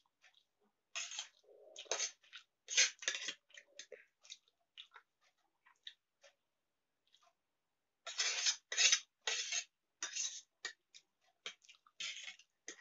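Eating instant noodles: slurping and chewing in two bouts, about a second in and again past the middle, with metal cutlery clicking and scraping on a steel plate in between.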